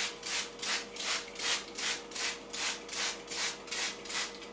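Hand trigger spray bottle pumped again and again, about two short hissing sprays a second, soaking a microfibre mop cloth with cleaning solution.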